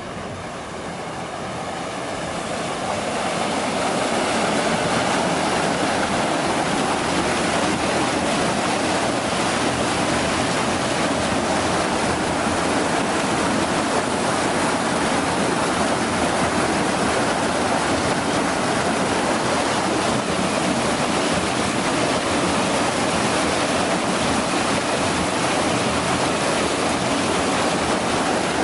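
Water from a sequencing batch reactor in discharge mode rushing over a weir gate and pouring into the channel below. It is a steady rushing that grows louder over the first few seconds.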